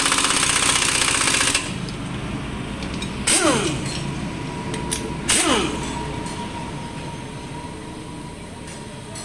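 Impact wrench hammering the clutch pressure-plate spring bolts tight for about a second and a half. Two short bursts follow about two seconds apart, each ending in a falling whine as the tool spins down.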